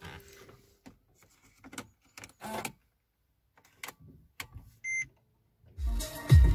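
Scattered clicks and knocks with a short electronic beep about five seconds in, then music with a heavy beat coming in near the end.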